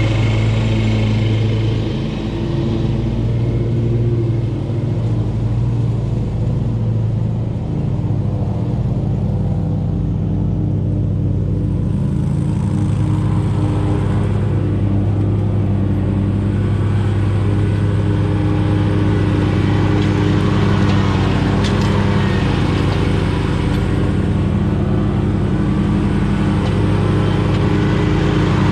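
2019 Scag V-Ride 2 stand-on commercial mower running steadily while mowing, its engine note shifting slightly in pitch a few times.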